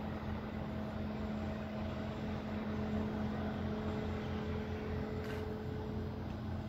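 Steady low mechanical hum with one constant pitch and a rumble underneath.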